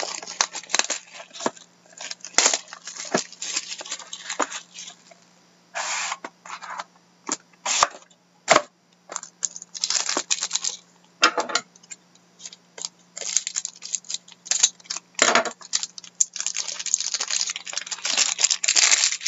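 A sealed trading-card box being opened by hand: plastic wrapper crinkling and tearing in irregular rustling bursts, with clicks and scrapes of cardboard and cards being handled. A faint low hum runs underneath.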